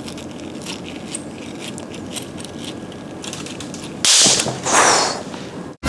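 Small clicks and scrapes of tools working inside a Canon 350D DSLR's body, then two loud crackling bursts about four and five seconds in, as the charged flash capacitor is shorted out.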